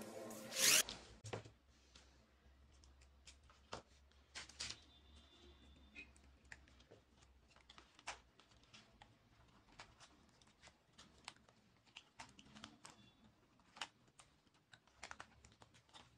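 Scattered small clicks, ticks and rustles of hands handling thin wires, matchbox cardboard and the plastic toy chassis. A brief louder rasp comes less than a second in.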